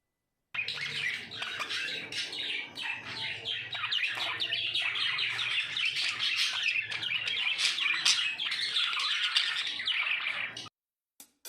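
Budgerigars chirping and chattering in a dense, continuous warble that cuts off abruptly near the end.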